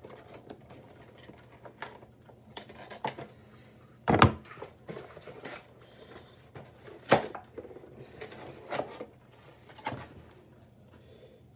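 Toy packaging being handled: scattered clicks, taps and knocks, the sharpest about four seconds and again about seven seconds in.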